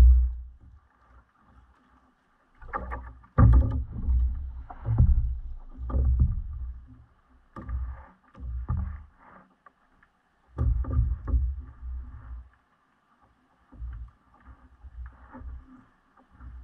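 Water sloshing and slapping against a kayak's hull in irregular low bursts, each lasting about a second, with short lulls between.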